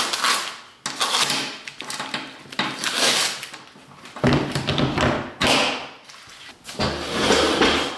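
Plastic body panels and the seat of a snowmobile being handled and fitted by hand: irregular scraping and rustling, with a heavier thud about four seconds in and again near the end.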